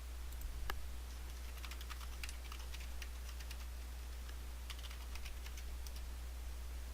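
Quick, light, irregular clicks in two short runs after a single sharper click near the start, over a steady low electrical hum.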